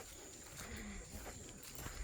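Footsteps walking over soft ground: a few irregular soft thumps, faint, over a thin steady high-pitched whine.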